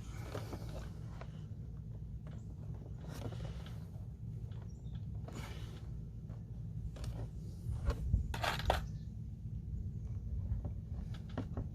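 Hands working on a backpack leaf blower, reconnecting the ground wire to its stop switch: scattered small clicks, handling noises and short scrapes, with a louder pair of scrapes about eight seconds in, over a steady low hum.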